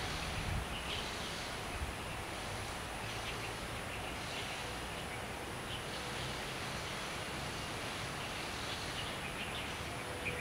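Steady outdoor ambient noise with faint short high chirps scattered through it, and a brief low rumble at the very start.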